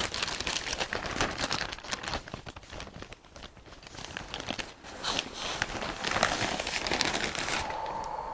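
Plastic parcel bag crinkling and rustling as it is opened and handled and fabric is pulled out of it, dying away near the end.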